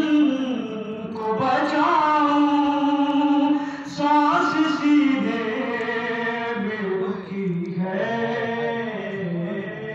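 A young man's solo voice chanting a noha, an Urdu lament, unaccompanied and through a microphone. He holds long notes with short breaks for breath.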